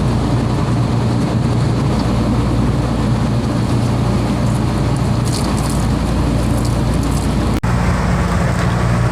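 Boat engine running steadily, a low drone with a brief break about seven and a half seconds in.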